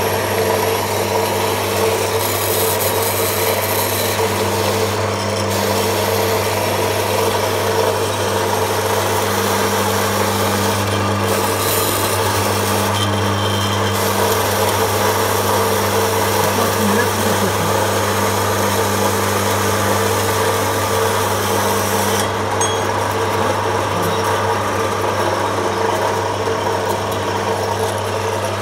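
Metal-cutting band saw running steadily, its blade sawing through a 4 mm-thick steel angle iron: a constant motor hum under the even noise of the cut.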